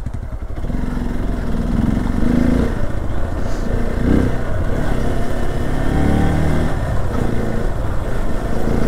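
Single-cylinder adventure motorcycle engine running while riding, its pitch wavering a little up and down with the throttle.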